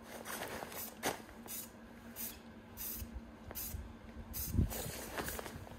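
Aerosol spray can of metallic charcoal paint hissing in short quick spurts, roughly two a second, as a light dusting coat is misted onto a paper mache cauldron. A low thump about four and a half seconds in.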